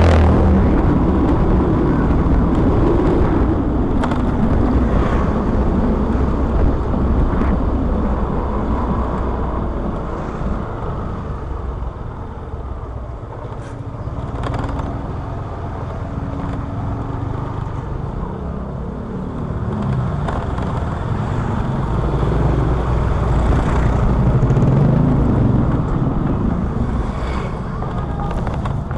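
Motorcycle engine running with road noise as the bike rides slowly along, getting louder and quieter as it speeds up and slows. Other vehicles are heard passing.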